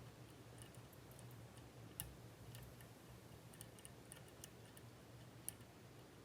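Faint, irregular small metallic clicks of a lock pick working the pins of a Mul-T-Lock Junior lock, with two sharper clicks about two seconds in and near the end, over a low steady hum.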